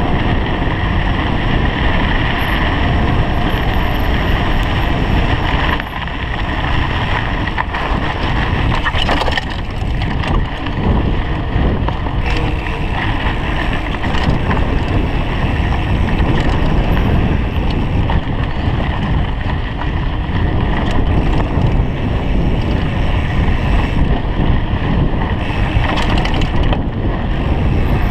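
Mountain bike riding fast down dirt singletrack, heard through a camera on the bike or rider: steady wind buffeting the microphone over the rolling tyres and rattle of the bike. A few sharp knocks come from bumps in the trail.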